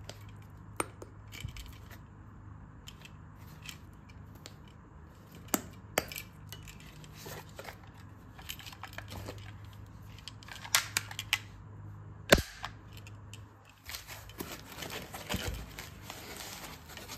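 Handling noise from a metal toy pistol and its holster: scattered sharp clicks and knocks, the loudest about twelve seconds in, with rustling near the end.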